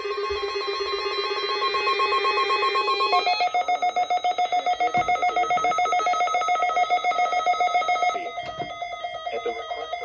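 Several weather alert radios sounding their electronic alarms together, announcing an incoming Amber Alert (child abduction emergency). The alarm is a fast, pulsing beep whose pitch changes about three seconds in, and the loudest tone drops away about eight seconds in, leaving a fainter mix of beeps.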